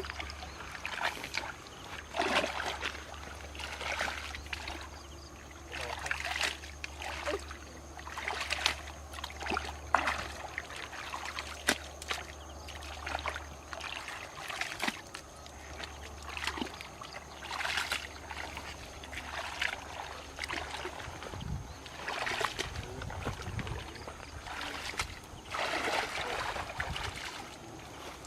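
Water splashing and sloshing in short repeated swishes about every two seconds, with a few light knocks, as a cast net or paddle works the water beside a small boat.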